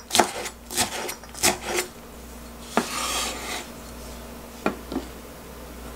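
Chef's knife chopping green onion on a bamboo cutting board: a few sharp knocks of the blade on the wood in the first second and a half. About three seconds in comes a brief scrape as the chopped onion is swept up with the blade, then two light knocks near the end.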